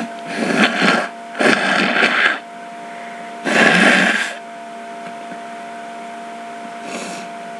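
A person blowing a hay-fever-congested nose into a tissue: three hard blows, the last the loudest, a little under four seconds in, then a faint short one near the end.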